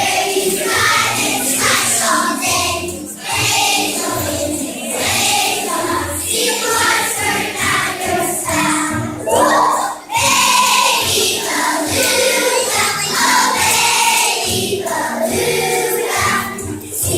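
Music with a choir of voices singing over a steady accompaniment, with a brief dip about three seconds in and another about ten seconds in.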